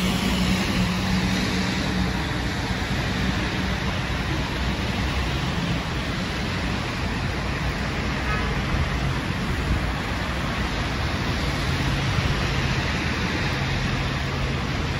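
Orion VII hybrid transit bus driving up a slushy street toward the listener, its low engine hum growing in the last few seconds over steady traffic and tyre noise on the wet road; a car passes near the start.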